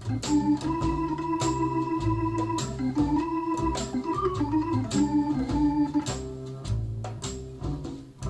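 Instrumental break of a pop song: an organ plays a held melody line over a steady drum beat, played back over hi-fi loudspeakers and picked up by room microphones.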